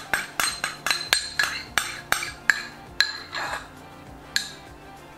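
Wire whisk clicking against a plastic mixing bowl while beating melted butter into pancake batter, about four strokes a second. The strokes stop about three seconds in, with one last tap a little later.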